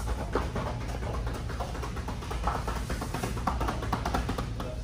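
Quick, light footsteps of sneakers tapping on a rubber gym floor through an agility ladder drill, a rapid run of short taps, over a steady low hum.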